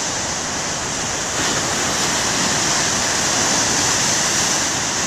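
Heavy ocean surf crashing and rushing on the shore, a steady roar of churning water that swells slightly about a second and a half in.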